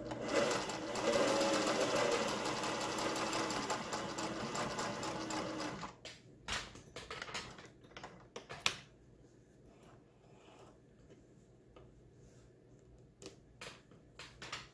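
Singer 401A sewing machine running at speed for about six seconds, sewing a decorative cam stitch, with its motor hum under a rapid needle clatter; it then stops abruptly. A few scattered clicks and one sharp knock follow as the machine is handled and the fabric drawn out.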